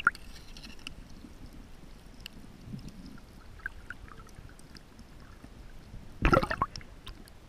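Underwater sound picked up by a camera beneath the sea surface: a low muffled rumble with scattered small clicks and crackles. A brief loud rushing burst, like bubbles or water moving over the camera, comes about six seconds in.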